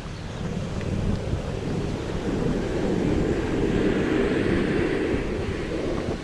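Wind buffeting the action camera's microphone while running: a loud, rushing rumble that swells for a few seconds in the middle.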